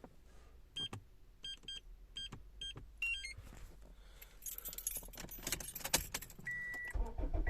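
Car keys jangling and clicking as they are handled at the ignition, with a string of about six short electronic beeps in the first half. Near the end a steady high chime starts repeating and a low rumble comes in as the car is switched on.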